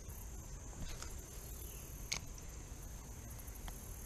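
Insects trilling steadily in a high, even tone, with a low rumble beneath and a few faint clicks about one and two seconds in.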